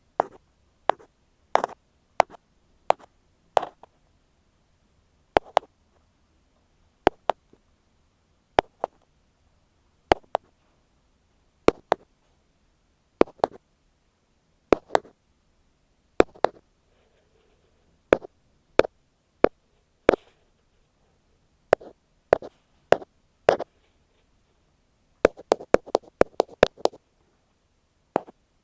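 Ear pick tapping on an earphone microphone: sharp single taps about one every second or less, with a quicker run of taps near the end.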